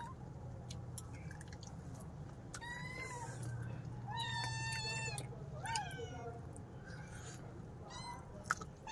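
A cat meowing four times: high, drawn-out calls that rise and fall, the second one lasting more than a second. A faint low hum sits underneath.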